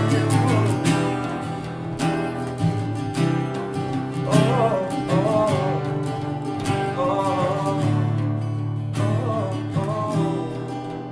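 Three acoustic guitars strummed together in a folk-rock song, with voices singing the melody over them.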